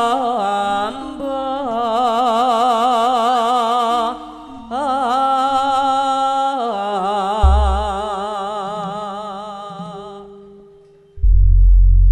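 A female Javanese sinden singing long, ornamented held notes with a wide vibrato into a microphone, in two phrases with a short break about four seconds in; her last note fades away around ten seconds in. About a second before the end a deep, loud gong stroke sounds and rings on.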